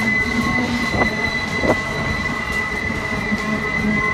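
Union Pacific freight train's empty double-stack well cars rolling past on steel rails, with a steady high-pitched wheel squeal over the rumble of the wheels. Two sharp knocks sound, about a second in and again a moment later.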